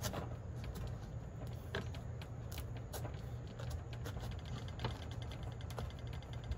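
Kitchen knife working through the hard rind and flesh of an acorn squash, giving scattered short cracks and clicks as the blade is pushed and rocked down. A steady low hum runs underneath.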